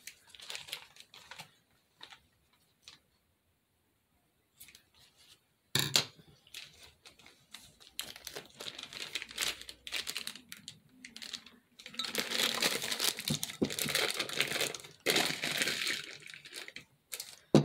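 Plastic piping bag crinkling and rustling as it is handled and filled with spackle, with one sharp knock about six seconds in. The crinkling turns dense and is loudest in the last few seconds.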